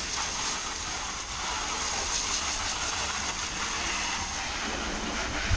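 Garden hose spraying water onto a car's bodywork in a steady hiss: the pre-rinse before a contact wash.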